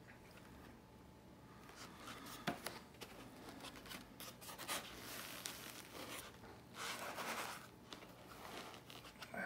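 Faint rubbing and scuffing of dense foam packing as a figure is worked by hand out of a tight foam insert, with a sharp click about two and a half seconds in.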